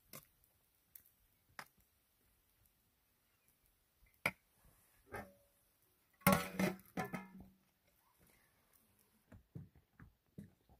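Metal cooking utensils: a slotted skimmer clicking and tapping against a metal dish, then a large metal pot lid clattering and ringing a little past six seconds in.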